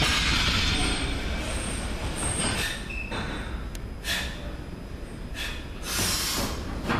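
A 185 kg steel barbell and its bumper plates, just come down onto wooden jerk blocks, ringing and rattling as they settle. The sound fades over the first two seconds, and a few short scrapes and knocks follow as the bar is gripped again.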